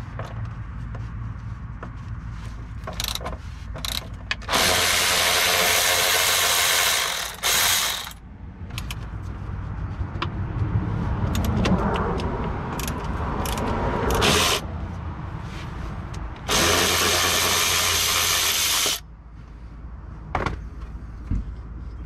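A cordless power tool runs in two bursts of about three seconds each, backing out the bolts of the muffler hanger bracket. Scattered clicks and clinks of the socket and hardware come between the bursts.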